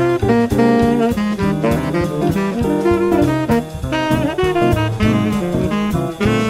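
Bebop jazz background music: a saxophone playing fast lines over drum kit and bass.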